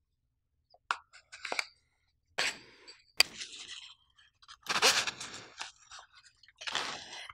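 Close-miked handling of a screw-in variable ND filter being slid into the mesh pocket of a fabric filter wallet: separate short scrapes and rustles, with a sharp click about three seconds in.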